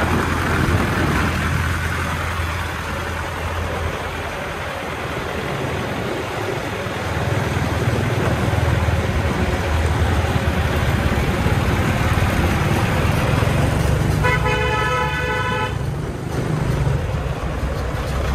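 Hoa Mai light dump truck's diesel engine running steadily as the loaded truck drives past. A vehicle horn sounds once, for about a second and a half, about fourteen seconds in.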